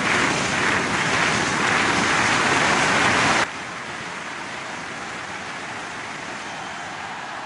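Large stadium crowd, a steady wash of noise from many people that drops abruptly to a quieter level about three and a half seconds in.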